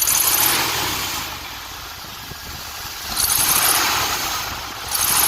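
The 1972 Ford Gran Torino's 351 V8 with a two-barrel carburettor, revved sharply from idle three times, each rev falling back toward idle.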